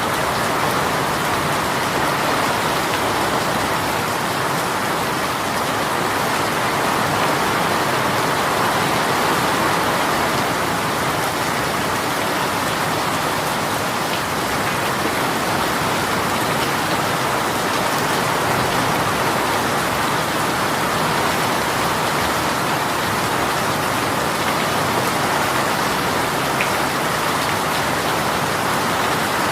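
A heavy rain shower pouring down and pattering on surfaces in a steady, unbroken hiss.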